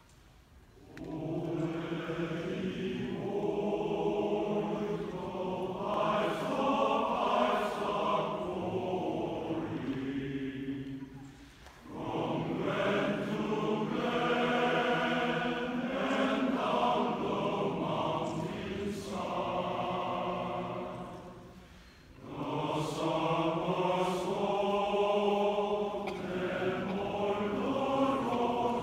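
Large mixed choir singing in three long phrases, with brief breaks between them.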